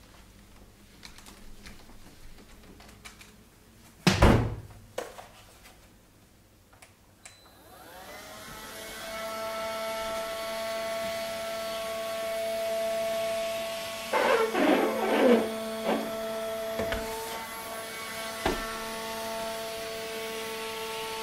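A sharp knock about four seconds in; then, about eight seconds in, the Electrolux Well S7 window vacuum's suction motor spins up, rising in pitch, and settles into a steady, quiet whine. Around fourteen to sixteen seconds its squeegee blade scrapes and squeaks across the wet glass.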